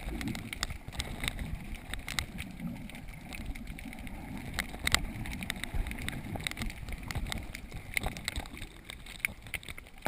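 Underwater sound through a GoPro's waterproof housing: a muffled low wash of moving water with scattered sharp clicks and crackles throughout.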